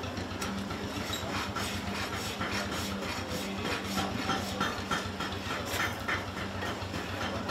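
Farrier's hoof rasp scraping across a draft horse's hoof in quick repeated strokes, trimming and levelling the hoof for shoeing. A steady low hum runs underneath.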